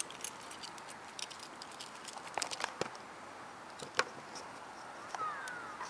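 Wood fire burning inside a homemade ammo-can stove: irregular crackles and snaps over a low hiss, the sharpest snap about four seconds in. A brief gliding whistle comes a little after five seconds.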